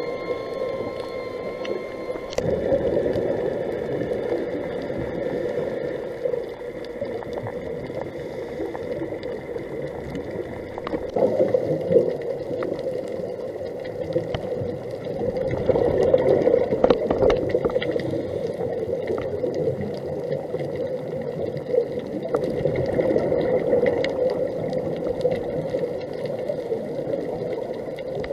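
Scuba regulator breathing and exhaust bubbles gurgling underwater, coming in swells every few seconds with each exhalation, with a faint steady high whine underneath.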